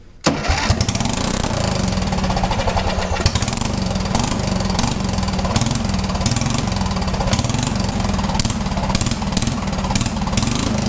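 Riding mower's single air-cooled engine starting suddenly a moment in, then running steadily by itself on fresh gas in the tank.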